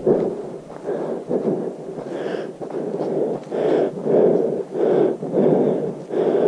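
Hiker's heavy breathing close to the microphone while walking a trail: rhythmic, noisy breaths repeating about every half second.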